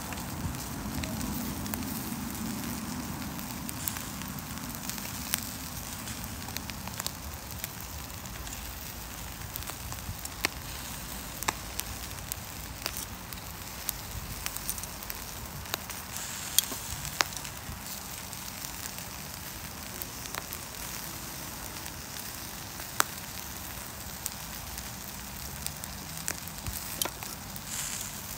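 Barbecue grill cooking chicken drumsticks and corn: a steady crackle and sizzle, with irregular sharp pops.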